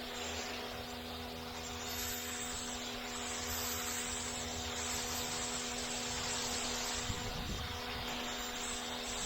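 Pressure washer running steadily, its motor's even hum under a loud hiss of the water jet, the hiss swelling and fading as the spray moves.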